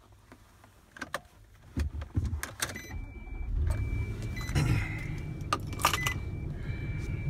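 Nissan Armada 5.6-litre V8 started with the push button, heard from inside the cabin: a few clicks, a brief crank about two seconds in, then the engine settles into a steady idle. A soft dashboard chime sounds several times over the idle.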